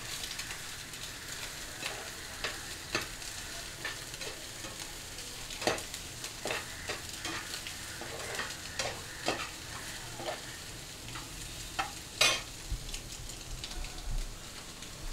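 Chopped onions, green chillies and scrambled egg sizzling in oil in a frying pan, stirred with a metal slotted spatula that scrapes and clicks against the pan at irregular moments. One louder scrape comes about twelve seconds in.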